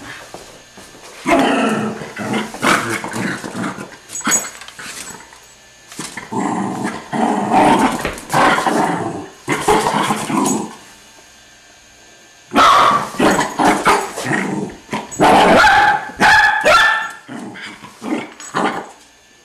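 A dog growling and barking at a broom pushed toward it, in three loud bouts of a few seconds each with quiet gaps between.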